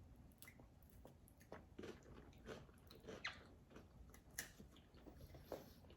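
Faint chewing of crunchy MRE crackers: scattered, irregular crackly bites and crunches.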